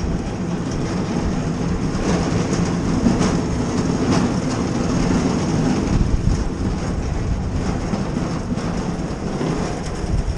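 A stainless steel barbecue grill being pushed on its wheels across a concrete driveway: a steady rolling rumble and rattle, with a few sharper clacks along the way.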